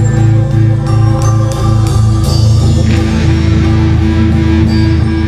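Loud background rock music with guitar and a steady beat.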